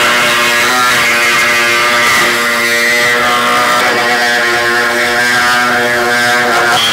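Hand-held air-powered cutting tool running steadily at a constant pitch as it cuts through the car body's sheet-steel pillar, a loud even buzz.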